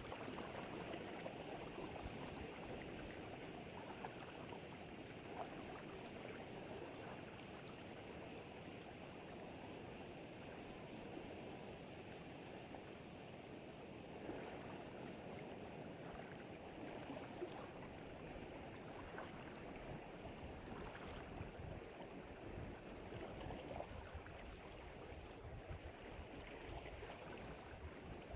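Wind blowing over the lake and small waves lapping at the bank, a steady noisy wash with small irregular gusts and splashes.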